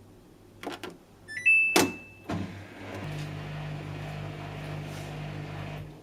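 Samsung Eco Bubble washing machine being started on a rinse and spin cycle. There are a few clicks, short electronic beeps, and a longer beep with a firm click. About three seconds in, the machine begins running with a steady hum and a rushing hiss, which stops just before the end.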